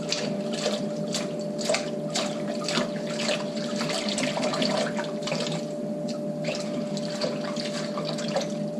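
Kitchen tap running over baby spinach and kale leaves as the vinegar wash is rinsed off them, water splashing and spattering unevenly as the leaves are handled under the stream, with a steady hum under it.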